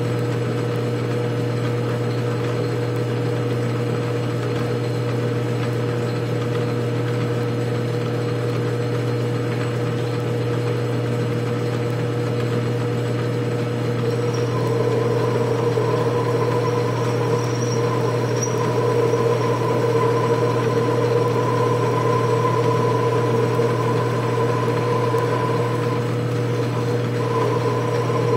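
Atlas 618 bench lathe running steadily with a constant motor hum while a ball-turning attachment cuts a spinning workpiece. About halfway through, a higher steady whine joins in and the sound grows a little louder as the tool takes a heavier cut, throwing chips.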